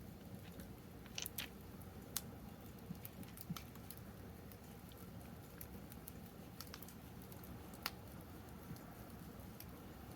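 Wood fire crackling in a fire pit: irregular sharp pops and snaps, the loudest about a second in, just after two seconds and near eight seconds, over a steady low rush of the flames.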